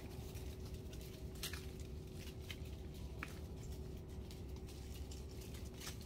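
Autumn leaves falling from a tree: scattered light ticks and patter, several a second at irregular spacing, over a low steady rumble and a faint steady hum.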